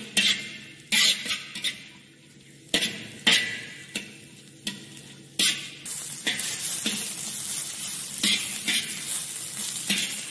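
Metal spatula scraping and knocking against a wok as shredded cabbage and mixed vegetables stir-fry in oil. A sharp knock comes every half second to a second at first; about six seconds in, a steady sizzle grows louder beneath the strokes.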